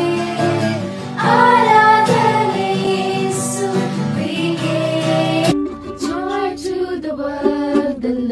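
Telugu Christian worship song: a voice singing over instrumental backing. About two-thirds of the way in, the full backing drops away, leaving plucked-string notes under the singing.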